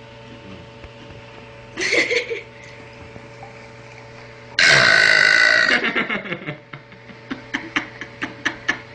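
A little girl's loud burp lasting about a second, just past the middle, after a shorter, quieter sound about two seconds in. It is followed by a quick irregular run of short clicks, over a steady faint background hum.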